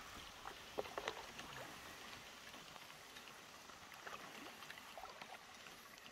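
Canoe paddling on a river: small splashes and drips of water from the paddle strokes over a faint steady wash of water.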